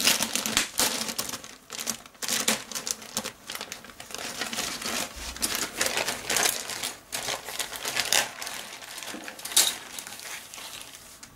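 Clear plastic kit bag crinkling and crackling as a hand works it open around grey plastic model sprues, with irregular clicks of the sprues shifting inside.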